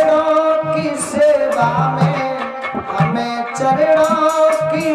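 Live devotional singing: a man's voice through a microphone, holding long notes, over steady hand-drum beats.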